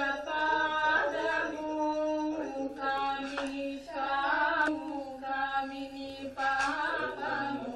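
Voices chanting a Hindu puja chant in unison, holding long steady notes in phrases with short breaks between them.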